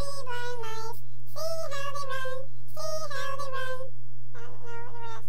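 Human voice sped up to a squeaky chipmunk pitch, in four short high phrases of about a second each with gliding pitch, over a steady low hum.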